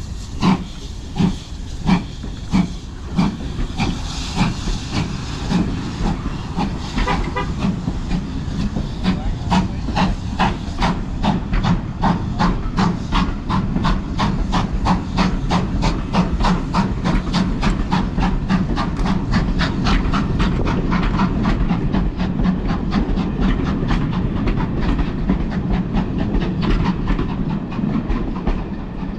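GWR Modified Hall class 4-6-0 No. 6990 Witherslack Hall pulling away with its train. Its exhaust beats start at about two a second and quicken steadily as it gathers speed, with steam hiss. The coaches rumble past, their wheels clicking over the rail joints.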